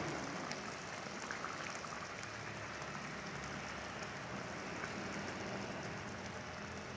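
Sambal cooking in hot oil in a pan: a steady sizzle with small crackles.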